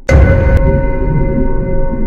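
Background music: a sudden loud hit with a deep bass just after the start, its bright top cutting off about half a second in, then held tones over a pulsing low end.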